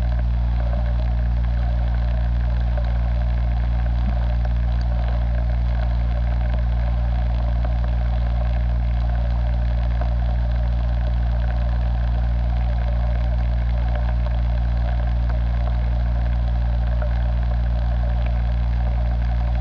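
Steady, unchanging machine hum, like a small motor running continuously, with a deep drone and a higher buzzing band above it.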